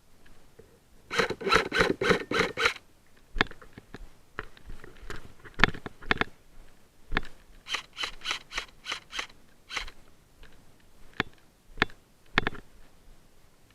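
Airsoft electric rifle firing two quick strings of semi-auto shots, about four to five clacks a second, with single shots scattered in between.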